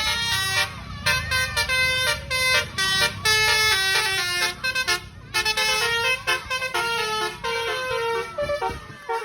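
Indonesian 'telolet' bus horn, a multi-tone musical horn, playing a quick tune of short notes that step up and down in pitch, over a low rumble.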